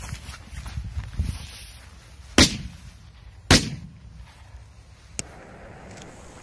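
Small aerial firework (a 'beetle' type) shooting up from the ground, then bursting with two sharp bangs about a second apart.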